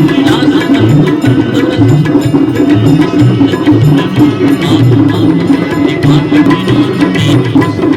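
Aarti devotional music with steady rhythmic drumming and dense percussion, over held tones.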